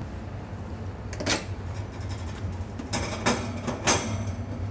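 Metal oven door being pulled open, with a knock about a second in and a few sharp metal clunks near the end, over a steady low hum.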